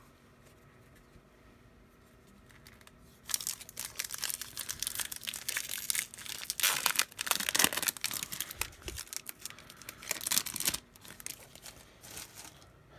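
Foil wrapper of a Topps Holiday baseball card pack being torn open and crinkled by hand, starting about three seconds in and dying down near the end.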